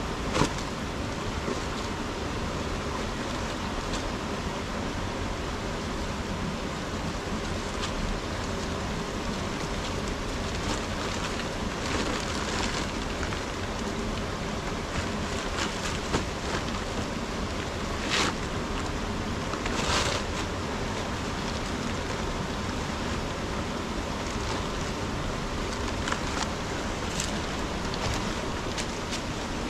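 A steady rushing hiss with a few brief rustles and knocks from a woven plastic sack and plastic jar being handled. The clearest knock comes just after the start, and two more come about 18 and 20 seconds in.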